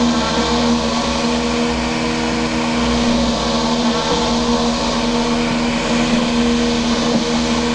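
Homemade robotic lawn mower in a Black & Decker mower housing running as it drives across the grass: a steady motor hum at constant pitch.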